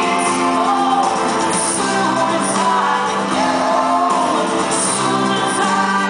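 A live band playing a song: a woman's lead vocal over acoustic guitar, electric guitar and drums, with cymbal strokes.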